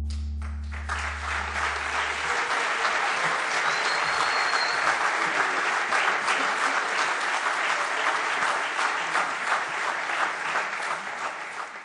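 Concert-hall audience applauding as the orchestra's final low chord fades away over the first two seconds. The clapping sets in about half a second in and stays steady and dense.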